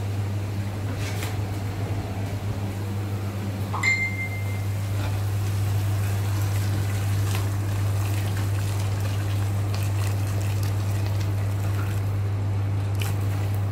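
Water poured from a stainless-steel electric kettle into a pot of chicken in tomato sauce, over a steady low hum. About four seconds in there is a short click with a brief high ringing tone.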